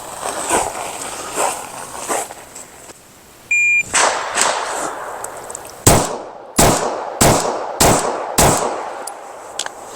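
A short electronic shot-timer beep, then five pistol shots fired in quick succession about half a second apart. Fainter shots are heard before the beep.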